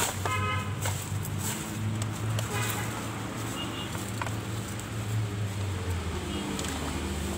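Rustling, crackling and scraping of dry leaves, rubbish and soil as a small loa tree is dug out at its base, with short clicks throughout. A bird chirps briefly near the start and again about two and a half seconds in, over a steady low hum.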